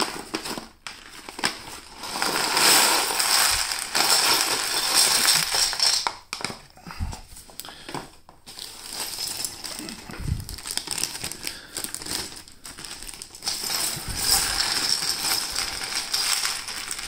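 Loose plastic Lego Bionicle pieces rattling and clattering as they are tipped out of bags into a tray, mixed with the crinkle of the bags. It is loudest for a few seconds early on and again near the end, when a clear plastic bag is shaken out over the pile.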